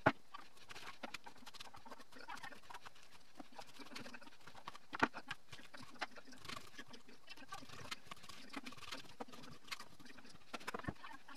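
Chef's knife dicing Hokkaido pumpkin on an end-grain wooden cutting board: irregular taps of the blade through the firm flesh onto the board, with a few louder knocks just after the start, about five seconds in and near the end.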